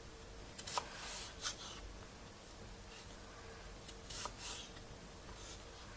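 Faint scraping of a knife paring the skin off a cucumber, a few short strokes about a second in and again around four seconds.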